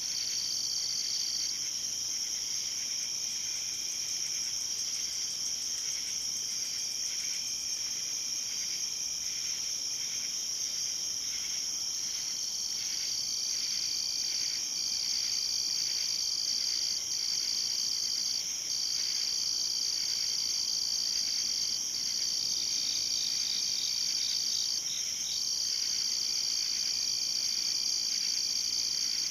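Night chorus of crickets and other insects: several calling at once, with a high continuous trill that breaks off briefly a few times, and slower rhythmic chirping lower down.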